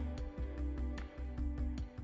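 Instrumental background music with a steady pulse and a sustained bass.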